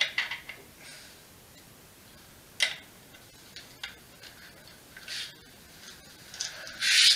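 A small metal hand tool clicking and clinking against the e-bike's handlebar stem bolts: a handful of separate sharp clicks, the loudest one near the end.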